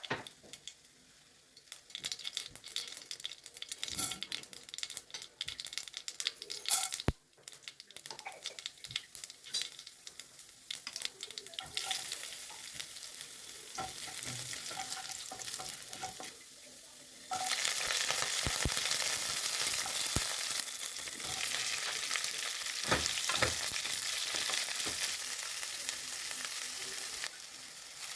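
Food frying in hot oil in a pan while being stirred. It starts as scattered sharp crackles and clicks, then turns into a steady sizzle about twelve seconds in, which gets louder about seventeen seconds in.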